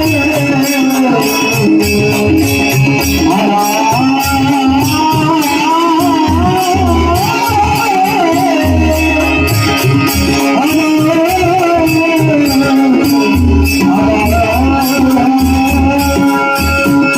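Marathi devotional bhajan: a singer's high, wavering voice over a steady held drone, with rhythmic jingling percussion and low drum strokes.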